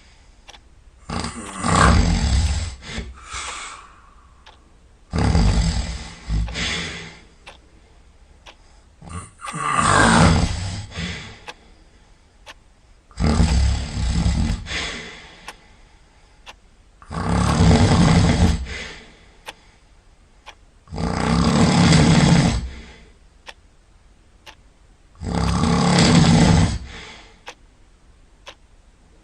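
Snoring in a steady rhythm: seven loud snores, each about two seconds long, one about every four seconds, with quiet breathing gaps between.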